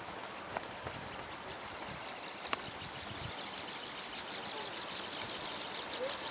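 Insects buzzing outdoors in a high, rapidly pulsing trill that swells after about a second, with a few faint clicks.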